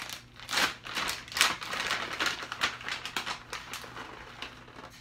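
A bag of bacon bits crinkling and rattling as it is handled and the bits are shaken out over the casserole. It makes a dense run of crackly clicks that is loudest in the first half and tapers off.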